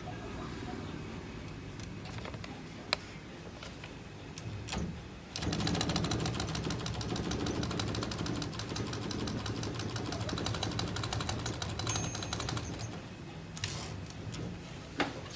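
Olivetti Lettera 32 manual typewriter being typed on: a few single key strikes, then from about five seconds in a fast, even clatter of keys lasting about seven seconds.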